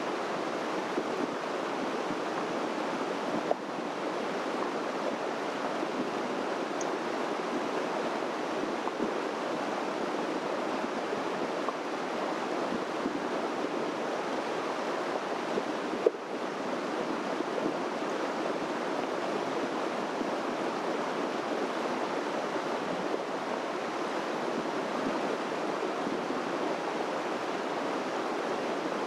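Steady rush of running water, even and unbroken, with two short knocks, one a few seconds in and one about halfway.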